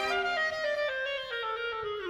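Solo clarinet playing a descending line that steps down note by note, at about three or four notes a second.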